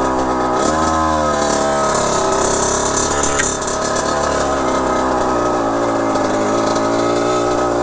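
Kawasaki KX100's 99cc two-stroke single-cylinder engine idling steadily, with a short blip of the throttle a little under a second in that rises and falls back.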